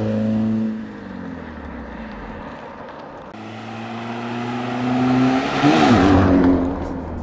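Suzuki Zen 1.0-litre engine running through new performance headers and exhaust, a note likened to a little rally car. At first the car is heard fading as it drives away. After an abrupt cut about three seconds in, the engine note rises as the car comes back and passes close by, its pitch dipping and climbing again as it goes past, then falls away.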